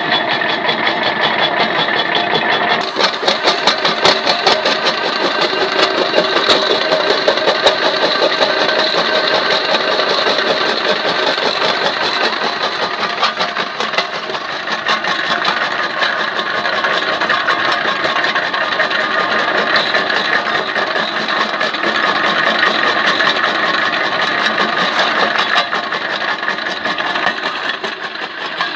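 Homemade jaw crusher, driven by an electric motor with a car wheel as flywheel, running and crushing broken brick: a loud, continuous clatter of rapid knocks and grinding, growing busier about three seconds in.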